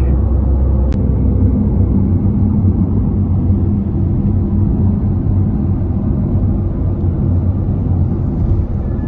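Steady low rumble of a Porsche 911 GTS Cabriolet (992) cruising at highway speed, heard from inside the cabin: engine, tyre and wind noise blended together.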